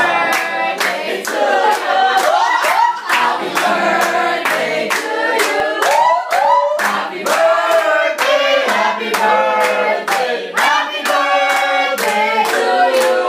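A group of people singing a birthday song together and clapping along in a steady beat, about two claps a second.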